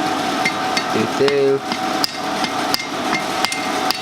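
Wooden hammer striking hot twisted steel against an anvil in a loose, irregular series of knocks, forming the twisted bar into a curve. A steady hum runs underneath.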